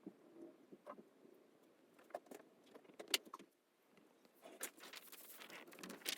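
Faint handling noises of small objects: scattered light clicks and taps, then denser rustling from about four and a half seconds in.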